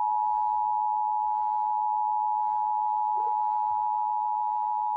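Emergency Alert System attention signal: a loud, steady electronic two-note tone held without a break, announcing an incoming severe thunderstorm warning.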